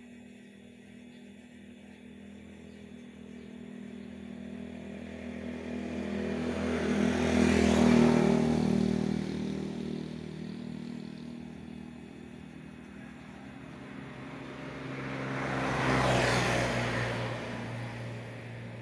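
Two motor vehicles passing by one after the other, each engine rising in loudness and then fading away. The first is loudest about eight seconds in, the second about sixteen seconds in.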